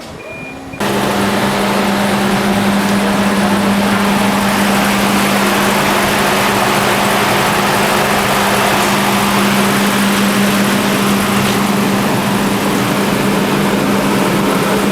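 Factory machinery running steadily: a loud, even hiss with a steady low hum, starting abruptly about a second in.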